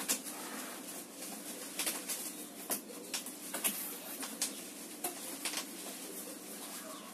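Cardboard box flaps pulled open and a plastic-wrapped mop bucket handled and lifted out: irregular crinkles, rustles and scrapes of cardboard and plastic film, about one every half second.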